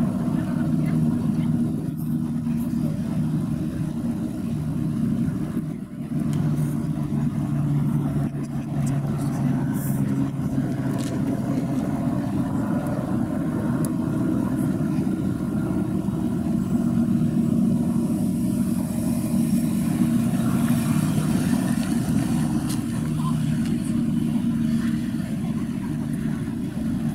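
Steady low engine drone with a constant hum, running evenly throughout.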